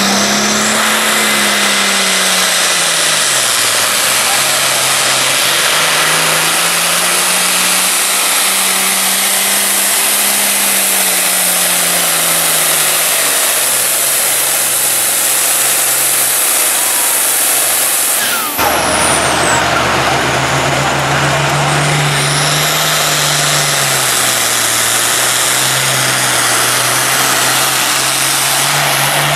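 Turbocharged diesel Pro Farm pulling tractors running flat out against a weight-transfer sled, the engine note swinging up and down every few seconds with a high turbo whistle over it. About two-thirds of the way through, the sound cuts abruptly to another tractor running at a lower, steadier note.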